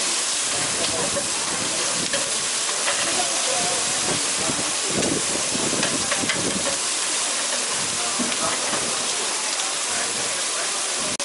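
Lots of fish sizzling on a hot grill: a steady hiss.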